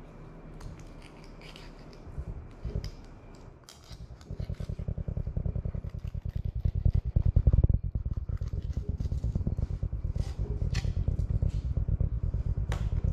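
Filleting knife slicing and scraping through whiting on a cutting board, in quiet clicks and scrapes. From about four seconds in, a loud, fast, steady low throbbing starts and drowns out everything else.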